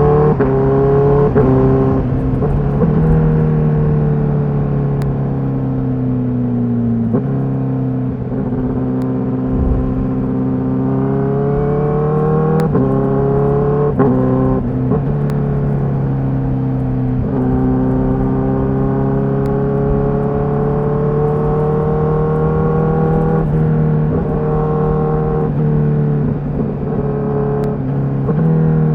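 Honda CBR1000RR-R SP's inline-four engine running on its stock exhaust. Its pitch holds or climbs slowly for several seconds at a time, then jumps suddenly at each gear change, several times over, with faint clicks at some of the changes.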